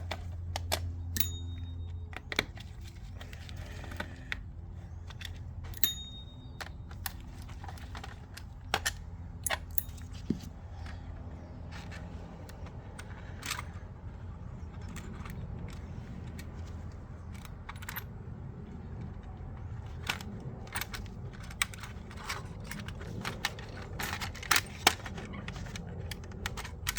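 Scattered small clicks and taps of hard plastic and metal as a VHS cassette's shell screws are taken out with a screwdriver and the cassette is handled, over a steady low hum.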